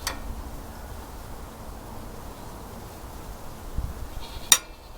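Small engine parts being handled on a bench: a click at the start, a soft knock a little before the end, and a sharp click near the end, the loudest, over a steady low background noise.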